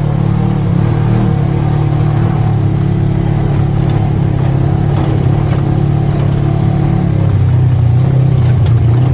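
ATV engine running steadily while riding, its pitch shifting slightly about three quarters of the way through.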